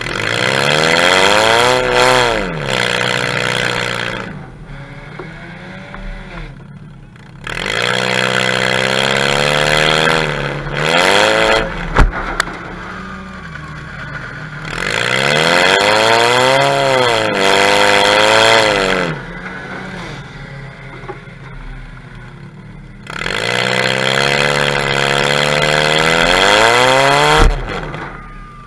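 Demolition derby car engine revving hard in about four long bursts, each rising and falling in pitch over a few seconds, with quieter stretches between. A sharp bang about twelve seconds in is the loudest moment, and a smaller one comes near the end.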